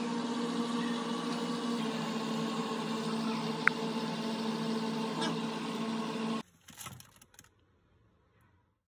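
A steady machine hum with a few held tones over a hiss, like a small motor or fan running. It cuts off abruptly about six and a half seconds in, with a single short sharp click a little before that.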